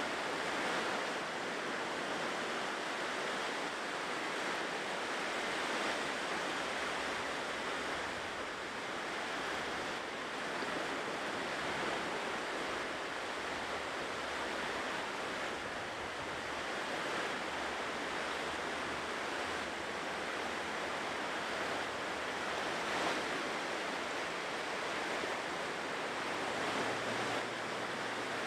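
Ocean surf washing on the shore: a steady wash of breaking waves that swells and eases gently.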